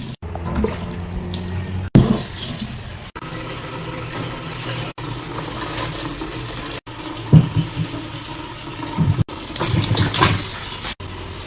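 Running water splashing, with a few sharp knocks and clatters; the sound drops out and restarts abruptly several times.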